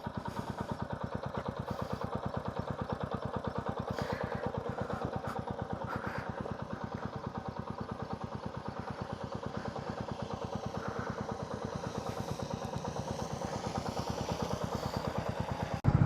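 Motorcycle engine idling with a steady, even pulse.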